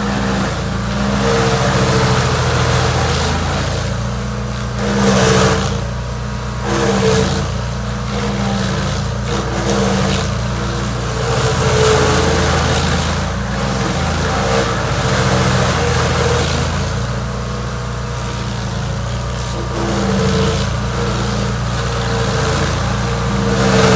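Chainsaw engine running steadily for the whole stretch, its revs rising and falling with several swells in loudness.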